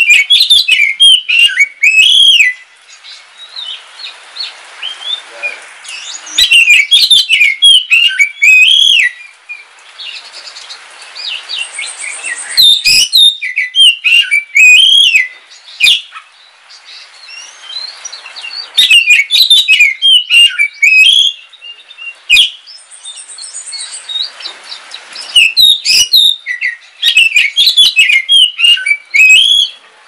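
Oriental magpie-robin of the all-black Kalimantan form (kacer wulung) singing. Five loud bursts of fast, varied whistled phrases come every few seconds, with softer scattered notes between them.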